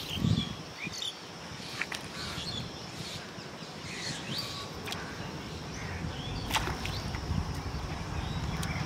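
Outdoor pond-side ambience: scattered short bird chirps over a steady low rumble, with a low thump just after the start and a few faint clicks.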